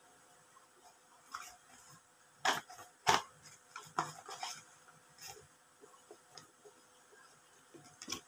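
Handling noises: scattered taps and knocks of small items being picked up and set down on a wooden table, with two louder knocks about two and a half and three seconds in.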